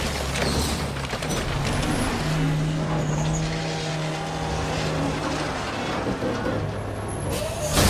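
A motor vehicle's engine running steadily, with a low hum whose pitch steps up about two seconds in and drops back a few seconds later.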